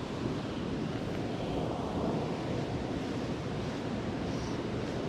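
Steady rushing wind noise buffeting the microphone, heaviest in the low range.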